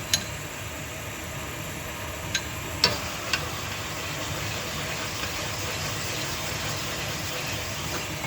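A machine's motor running steadily with a hiss and a low hum, with a few light metallic clicks; the running cuts off abruptly at the very end.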